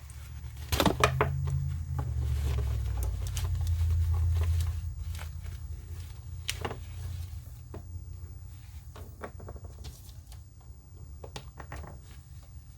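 Handling noises from unboxing a boxed action figure: a cluster of sharp clicks and knocks about a second in, then scattered clicks over a low rumble that fades after the first few seconds.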